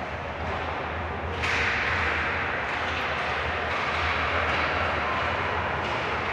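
Ice hockey rink ambience: a steady hiss of play on the ice over a low steady hum, growing louder about a second and a half in, with a few faint knocks.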